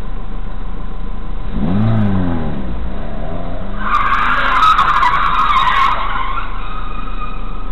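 Car tyres skidding for about two seconds, beginning about four seconds in, the loudest sound here, with a few sharp clicks. Before it, a car engine rises and falls in pitch once, over a steady engine hum from the dashcam car.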